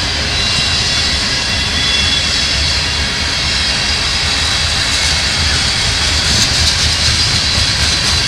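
Freight train of covered hopper cars rolling past: a steady rumble of wheels on rail with a high steady whine above it. From about six seconds in, sharp wheel clicks repeat several times a second as the trucks cross rail joints.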